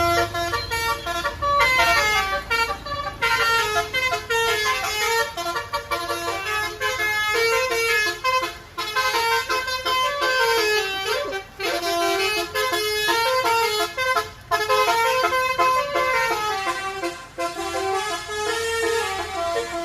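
Basuri telolet air horn on a tour bus playing rapid musical melodies: chords of horn notes stepping up and down, repeated with a few brief breaks.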